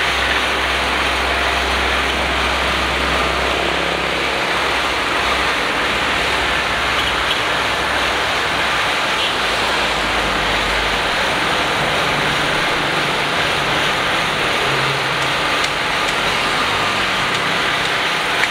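A small portable generator running steadily with a loud, even engine noise. A deeper low rumble underneath dies away about halfway through.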